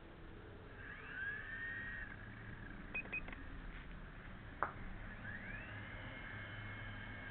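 Solo Pro V2 micro RC helicopter's electric motor and rotors whining, the pitch rising as the motor speeds up about a second in and again about five seconds in, then holding steady. Two short beeps come around three seconds, and a sharp click comes a little before the second rise.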